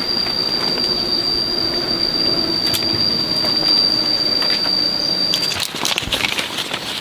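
Cicada calling in the tree, one steady high-pitched whine that cuts off suddenly a little past five seconds in; after it come a few scattered clicks and rustles.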